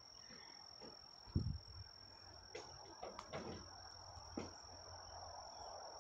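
A steady high-pitched insect drone. A soft low thump comes about a second and a half in, with a few faint knocks after it.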